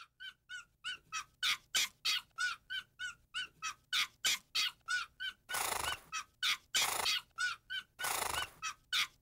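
A bird-like chirp repeated in a steady rhythm about three times a second, fading in over the first second and a half, as the intro of a song. From about halfway, hissing swooshes join on some of the beats.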